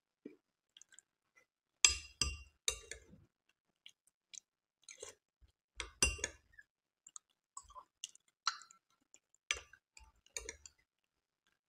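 A metal spoon clinking against a glass bowl as kheer is scooped and eaten: about nine sharp, ringing clinks at uneven intervals, the loudest about two seconds in, with quiet chewing between.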